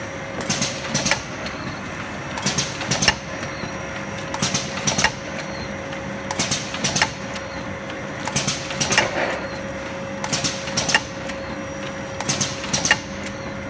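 Automatic sachet filling and sealing machine for cappuccino and chocolate powder running: a burst of mechanical clacks about every two seconds over a steady hum, one burst for each cycle of sachets being sealed, cut and dropped.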